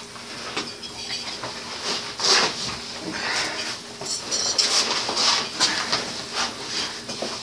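Bicycle tire and wheel being worked by hand onto the rim: an irregular run of rubbing, scraping and light clattering handling noises, with a brief rapid ticking about four seconds in.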